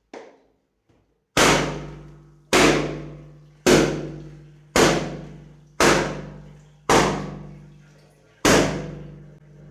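Balloons popping one after another: seven sharp bangs about a second apart, each ringing out for about a second, then a swelling sound near the end.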